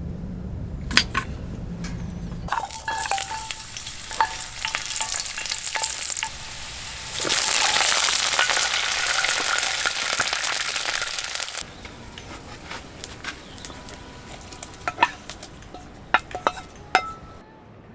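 Food sizzling in a hot pan with scattered clicks and clinks of utensils. The sizzle swells loud for about four seconds in the middle, then cuts off abruptly, and a few sharp clicks follow near the end.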